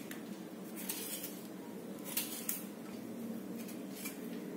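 A small blade scraping and peeling the skin off a raw ratalu (taro root), heard as a few short, quiet scrapes.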